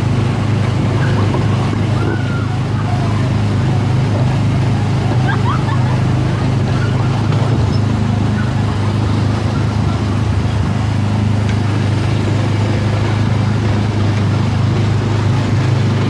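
Steady drone of an Autopia ride car's small gasoline engine, heard up close from the car itself as it drives along the track.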